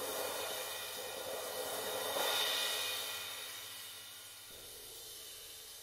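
Riveted bronze ride cymbals, an 18-inch with two small brass rivets and a 22-inch with one, played with felt mallets: a smooth washy roll with a hissing rivet sizzle that swells to its loudest about two seconds in, then dies away.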